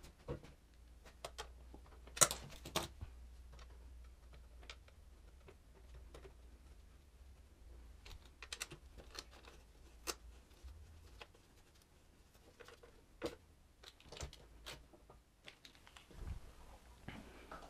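Faint, scattered clicks and light metallic taps of a hand tool working Torx screws into a motocross bike's rear subframe, irregular rather than a steady ratchet rhythm, with the sharpest click about two seconds in.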